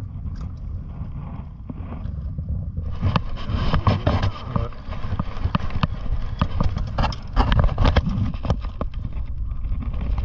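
Wind rumbling on the microphone, and from about three seconds in a dense, irregular run of clicks, knocks and scrapes from gear being handled right beside the camera in a small wooden fishing boat.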